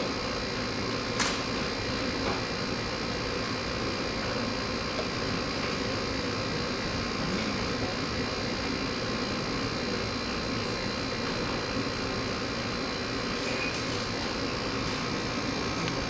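Steady hum of room ventilation, with a couple of faint clicks from a small tube cutter being turned around quarter-inch soft copper pipe.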